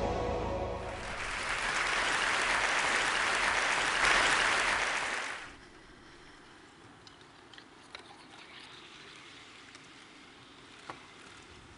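Audience applauding for about four seconds, then dying away quickly; after that, quiet with a few faint clicks.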